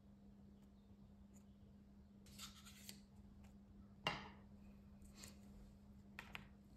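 Near silence with a low steady hum and faint handling sounds of a small plastic dressing cup and a metal fork on a salad bowl: a few soft rustles and clicks, the sharpest about four seconds in.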